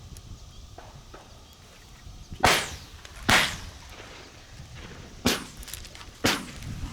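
Four shotgun shots in two pairs, each pair about a second apart, each shot with a short echoing tail. Wind rumbles on the microphone underneath.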